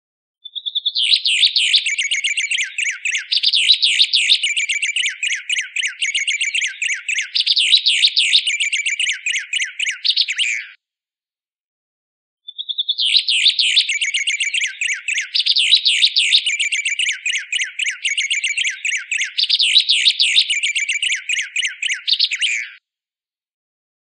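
White singer (white-plumed honeyeater) song from a looped training recording: a rapid run of chirping, whistled notes lasting about ten seconds, then a pause of under two seconds and the same run again.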